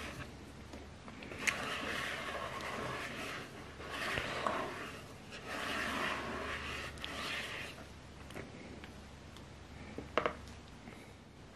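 Spatula scraping and folding thick pandan sponge batter in a plastic mixing bowl, in several strokes of a second or two each. Near the end it goes quieter, with a couple of sharp clicks.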